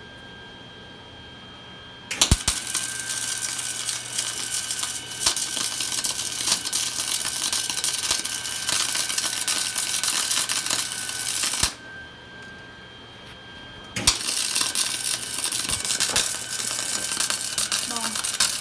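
MIG welder arc crackling as a bead is run on steel plate, starting about two seconds in. It stops for about two seconds near the middle, then strikes up again and keeps crackling.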